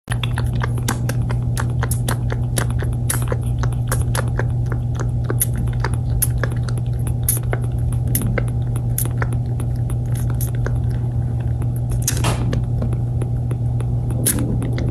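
Kitten suckling from a nursing bottle: quick wet sucking clicks and smacks, several a second and irregular, over a steady low hum.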